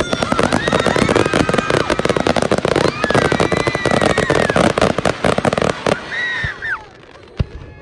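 Aerial fireworks with crackling stars going off: a dense rattle of rapid small pops, dying away about six seconds in.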